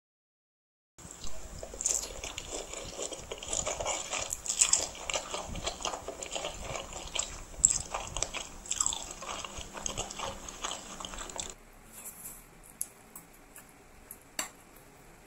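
Close-up wet chewing and smacking of a big mouthful of spicy noodles, dense with small mouth clicks. It starts after about a second of silence and turns quieter near the end, with only a few scattered clicks.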